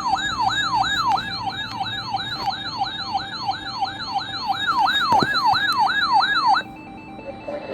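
Electronic siren tone sweeping rapidly up and down, about three times a second, cutting off suddenly near the end, after which only a low hiss remains.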